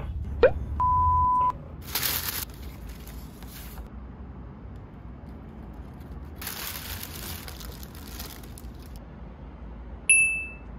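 A quick rising swoosh and a steady high electronic beep, then rustling of tissue paper and plastic wrapping as a package is unwrapped, in two stretches. A short bright ding comes near the end.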